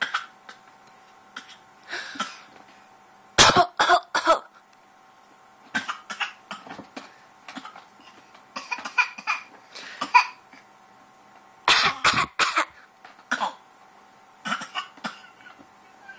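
A baby girl coughing on purpose for fun, in repeated bursts of two or three short, sharp coughs every second or two, with a faint steady hum underneath.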